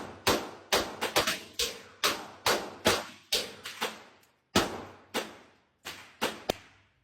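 Rapid string of handgun shots, about two to three a second, each crack followed by a ringing tail, spacing out with short pauses in the second half.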